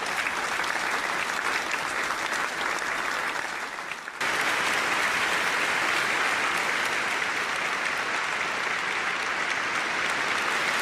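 Audience applauding, a steady clapping that jumps suddenly louder about four seconds in.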